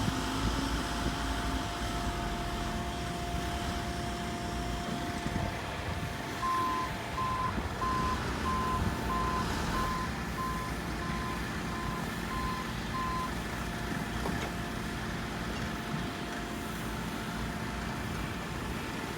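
Heavy construction machinery running steadily, with a vehicle's backup alarm beeping at an even pace for about seven seconds from a third of the way in.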